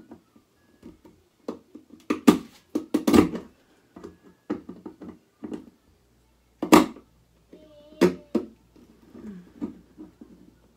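Pliers clicking and scraping against a light socket in a bathroom fan housing as they try to twist it loose: irregular clicks and knocks, a few of them sharply louder.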